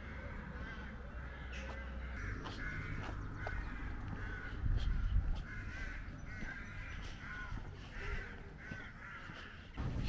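Crows cawing, many short calls one after another and overlapping, as from several birds at once.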